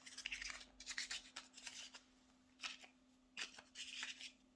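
Soft scraping and rubbing of a flashlight being handled as its tail cap is screwed back onto the body against spring pressure. The rubs are busiest in the first two seconds, then come a few separate short scrapes.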